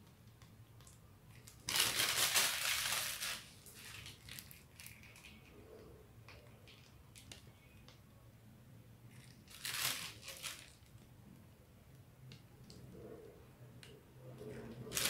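Plastic piping bag of whipped cream crinkling as it is squeezed and handled: a longer spell about two seconds in, a shorter one near ten seconds, and another starting at the very end.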